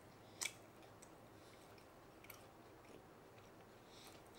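Near silence: room tone, with one soft click about half a second in and a few faint ticks.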